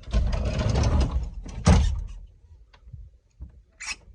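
A rapid mechanical rattle lasting about a second, then a single loud knock, with a few faint clicks after it.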